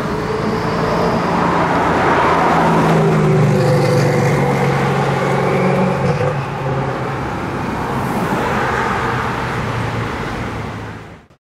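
Koenigsegg Agera R's twin-turbo V8 running at low speed in traffic, a steady low drone with only small changes in pitch, over general street traffic noise. The sound cuts off suddenly near the end.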